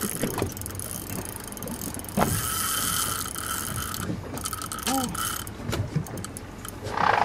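Large spinning reel working under a big hooked fish, its drag and gears giving a ratcheting whir, with a steady whine from about two seconds in until about five and a half seconds in.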